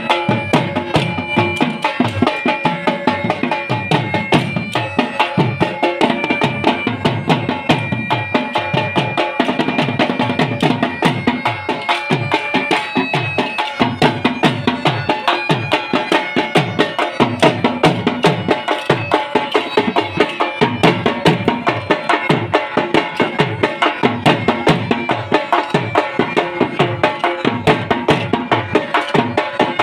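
Dhol and bagpipes playing Saraiki jhumar folk dance music: a fast, steady drumbeat under a continuous bagpipe melody.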